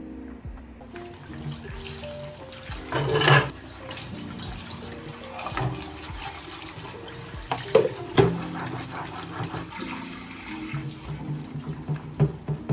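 Water running from a kitchen tap into a sink while dishes are washed by hand in rubber gloves, starting about a second in and growing louder a few times. Soft background music with held notes plays throughout.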